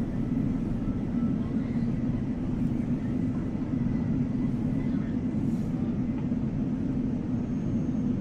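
Steady rumble of a commuter train running, heard from inside the carriage, with a faint high whine that fades out a few seconds in.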